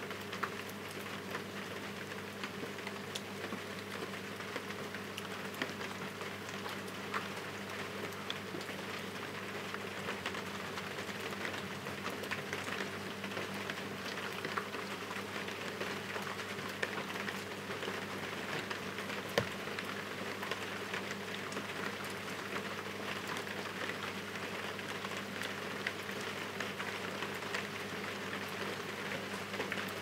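Heavy rain falling steadily, an even wash of rain noise with many separate drop hits ticking through it.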